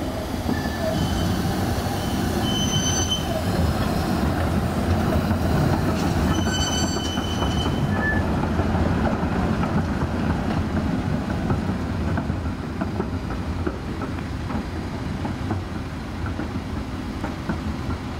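Articulated low-floor tram passing, its steel wheels running on the rails with a steady rumble. Short high-pitched squeals from the wheels come and go during the first half, then a run of light clicks as it travels on.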